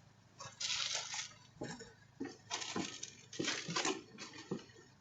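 Irregular rustling and a string of short knocks and thumps, with a hissy rustle near the start followed by five or six separate knocks.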